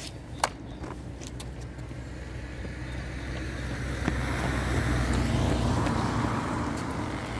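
A car driving past on a wet road, its tyre noise building to a peak about five to six seconds in and then easing off. A sharp click comes about half a second in.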